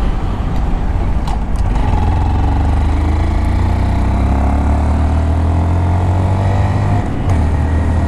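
Honda Monkey 125's single-cylinder engine pulling under acceleration, its pitch rising steadily over several seconds. The engine sound drops out briefly about seven seconds in, then carries on.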